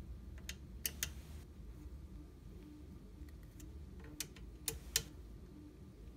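Hex key tightening a screw on a 3D printer's gantry: faint, irregular sharp clicks and light ticks of the key in the screw head, a pair of louder clicks about a second in and three more between four and five seconds in.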